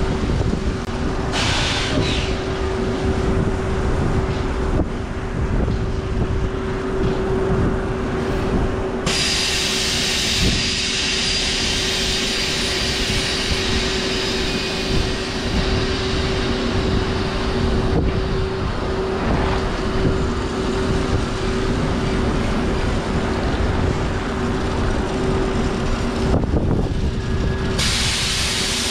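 Diesel semi truck running as it pulls an end-dump trailer slowly forward, with a steady whine throughout. A hiss comes in about nine seconds in and holds until near the end.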